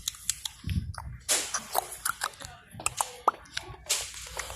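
Handling noise: scattered clicks, taps and rustles, with a low thump about a second in.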